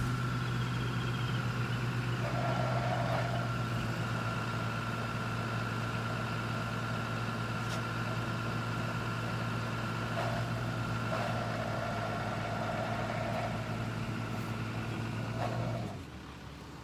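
An engine idling steadily with a low, even hum, which cuts off near the end.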